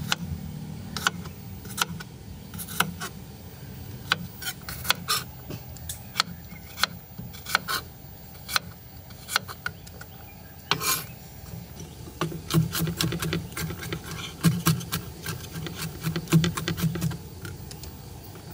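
Chef's knife chopping garlic cloves on a wooden cutting board, each stroke a sharp knock of the blade against the board. The knocks are spaced apart at first, then come faster and closer together from about twelve seconds in as the garlic is minced.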